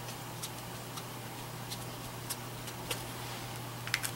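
Light, scattered ticks of a brush-tip marker working on paper over a steady low hum, with a quick cluster of clicks near the end as the marker is set down.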